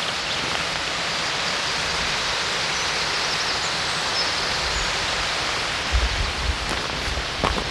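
Steady rush of a stream flowing down a wooded ravine, with a few faint high bird chirps midway and a low buffet of wind on the microphone about six seconds in.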